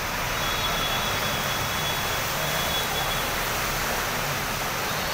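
Heavy monsoon downpour with floodwater running over the road: a steady, unbroken hiss of rain.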